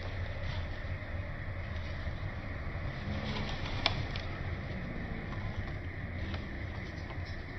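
Matches burning inside a glass bottle, a steady rushing hiss as the smoke jets out of the neck, with one sharp crack a little before four seconds in and a few fainter crackles later.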